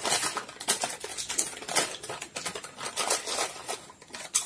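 Crisp potato chips crunching as they are bitten and chewed fast, mixed with the crinkle of plastic chip packets being dug into: irregular sharp crackles, several a second.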